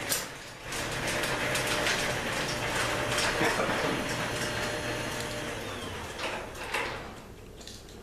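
Chamberlain PD222 garage door opener running as it lowers a sectional garage door: a steady mechanical rumble with a dense clatter of clicks. It ends in a thump about seven seconds in, after which the noise stops.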